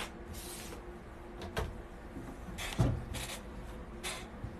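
Scattered handling sounds of things being moved about on a table: a few short rustles and knocks, the loudest a dull thump a little before the three-second mark, over a faint steady hum.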